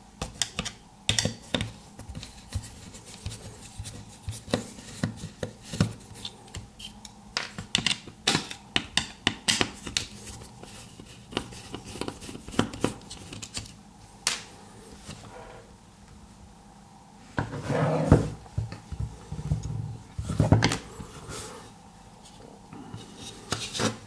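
Small screwdriver clicking and tapping against the plastic case and circuit board of a remote control as it is taken apart, a quick irregular run of sharp clicks. Two louder bouts of plastic handling noise come in the last third.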